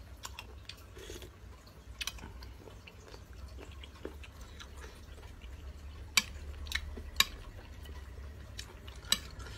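Metal spoon and fork clicking against a plate as food is picked apart: a handful of short, sharp ticks, spaced out and mostly in the second half, over a low steady hum.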